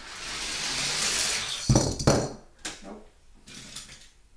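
Hot Wheels die-cast car rolling fast down a plastic track with a rushing whir, then clattering down with two hard hits about two seconds in and a few lighter bounces as it tumbles: the car has failed the jump.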